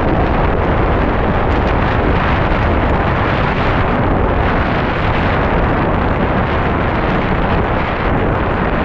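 Loud, steady wind buffeting the microphone, a dense low rumbling noise with no breaks.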